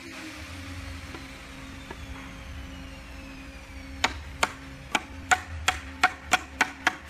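A run of sharp hammer blows on wood, about three a second, each with a short ring, starting about four seconds in over a steady low hum.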